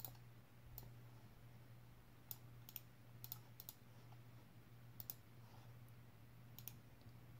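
Faint clicks of a computer mouse and keyboard, about a dozen in all, several in quick pairs, as a list is copied and pasted into a spreadsheet. A low steady hum runs underneath.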